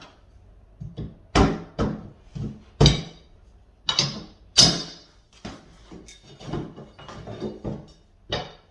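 A series of irregular knocks and clacks from flooring planks being handled and fitted into place on the floor, some sharp and loud, others faint.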